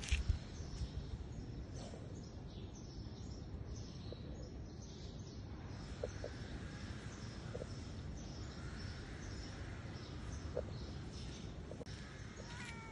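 Steady low outdoor background noise, with a few faint, short chirps scattered through it.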